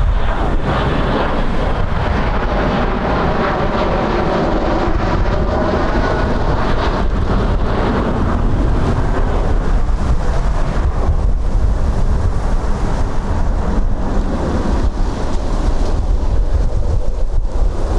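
Heavy wind buffeting the microphone, with a jet airliner's engine noise swelling over the first half and then fading away as the plane passes.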